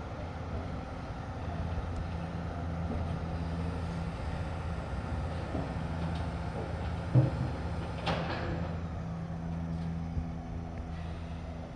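Autocar ACX front-loader garbage truck's engine running steadily. A heavy thump about seven seconds in, and a short burst of noise a second later.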